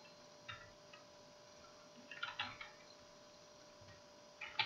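Faint computer keyboard keystrokes: a single click about half a second in, a quick run of clicks around two seconds in, and another run near the end, over a faint steady hum.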